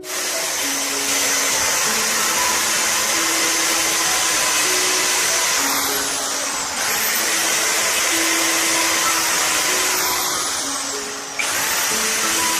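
A power tool running steadily with a loud, even whir, easing off briefly twice, over soft piano music.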